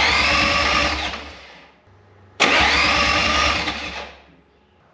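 VW Crafter diesel engine being turned over on its starter motor twice, each crank lasting about a second and a half with an even pulsing, and dying away without running on. It is a test crank on a freshly fitted timing belt, checking whether the engine will turn and fire after the old belt frayed and the van cut out.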